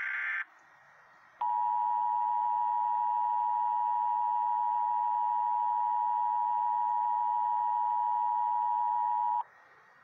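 Emergency Alert System two-tone attention signal on NOAA Weather Radio: two steady tones sounding together, held for about eight seconds, starting about a second and a half in, heard through the radio's speaker. It opens with the tail of a raspy burst of digital SAME header data, then a second's pause.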